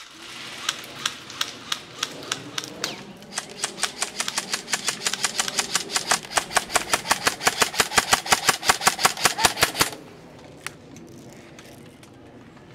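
Airsoft rifles firing: scattered single shots, then a long regular string of rapid shots, about seven a second, that grows louder and stops suddenly.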